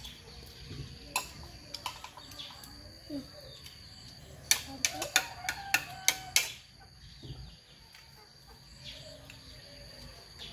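Metal spoon clinking and scraping against a dish as a child eats, with a quick run of about seven sharp clinks near the middle.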